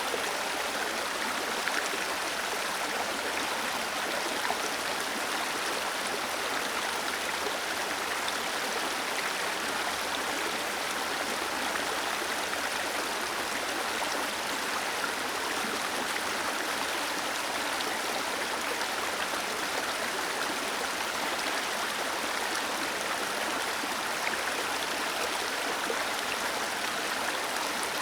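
Waterfall cascading steadily: an even, unbroken rush of falling and splashing water, mostly hiss with little deep rumble.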